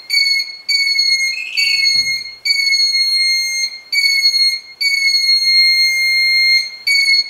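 Electronic alarm of a REM-Pod style ghost-hunting detector going off: a high, piercing tone in irregular beeps, some short and some a second or two long, each dipping slightly in pitch as it starts. The investigators take its triggering as a sign of a presence.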